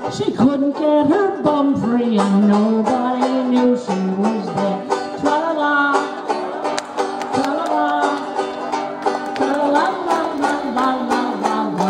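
Banjo played live at a steady beat, with a singer carrying a folk-style tune over it.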